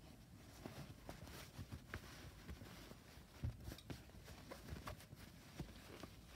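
Faint rustling and scattered soft knocks of a hand pressing down and crushing a collapsible fabric biretta, the strongest knock about halfway through.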